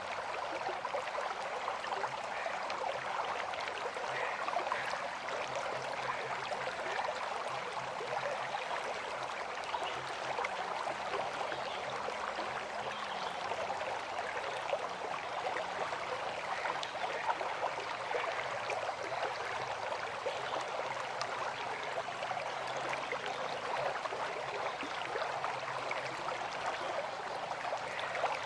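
River water flowing over stones, a steady rush with fine splashing and no pauses.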